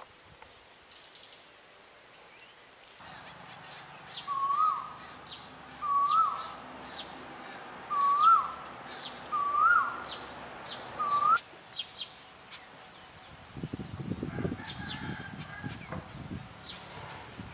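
Green-billed malkoha calling: five short, mellow notes, each rising then dipping, about one and a half seconds apart, with faint high ticking calls behind them. Low rumbling noise follows in the last few seconds.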